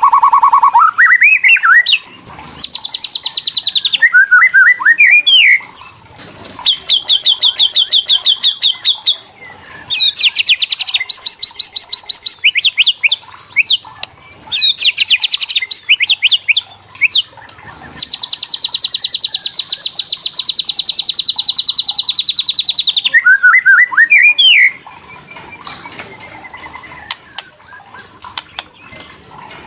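White-rumped shama (murai batu) giving its fast rattling kretekan call, the rattle used to provoke rival shamas into singing. There are several runs of rapid repeated notes, the longest about five seconds, broken by short rising whistled notes. The calling stops about 25 seconds in.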